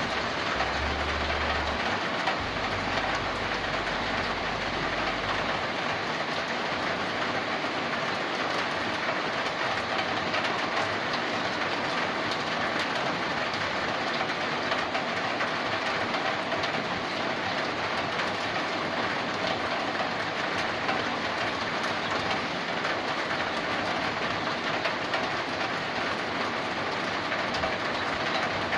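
Rainwater pouring from a gutter onto a corrugated zinc roof: a steady, dense clatter and splash of water hitting the metal sheeting.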